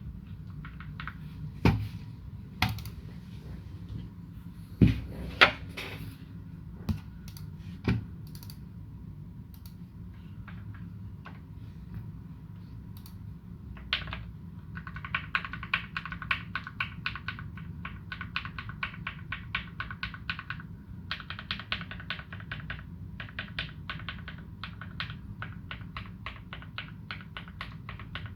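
Typing on a custom mechanical keyboard with lubed Gateron Ink Black v2 linear switches and GMK Dolch keycaps. It starts as scattered single keystrokes with a few louder strikes, then turns into fast, continuous typing about halfway through, broken by a brief pause.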